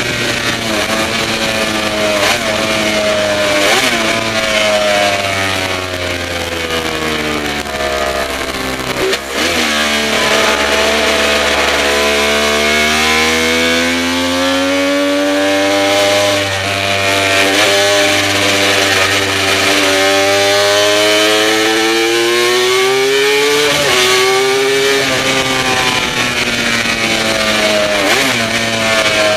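Works Kawasaki KR750 racer's two-stroke triple engine under way at speed, its note climbing as it pulls and dropping sharply when the throttle shuts and the gears change, about nine seconds in and again about 24 seconds in. Wind rushes over the onboard microphone throughout.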